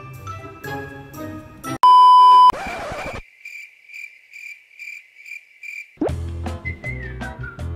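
Background music breaks off for a loud, steady beep lasting under a second and a short burst of noise. A run of short, high, evenly spaced beeps follows, about three a second. About six seconds in, upbeat music with a whistled melody starts again.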